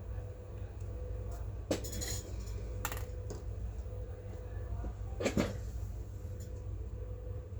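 A few sharp metallic clicks and clinks of small laptop parts and tools being handled, over a steady low hum.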